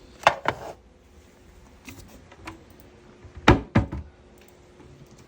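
Medical supplies being put away by hand: two pairs of short knocks and clatters, about three seconds apart, the second pair the louder.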